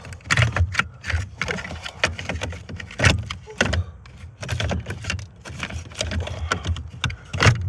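Irregular plastic clicks, knocks and scraping as the blower motor assembly of a 2012 Nissan Rogue is twisted and pulled out of its housing under the dashboard, with one sharp knock near the end the loudest.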